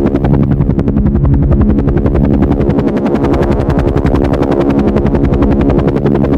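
Helicopter running loudly, its rotor blades chopping in a fast, steady rhythm over a steady engine hum.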